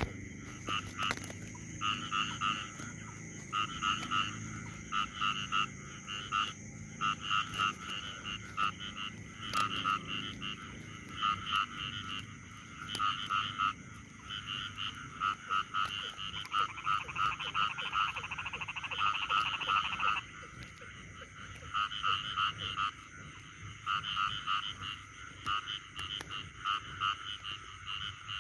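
Frogs calling: short pulsed croaks repeated over and over, about one to two a second, in runs a few seconds long.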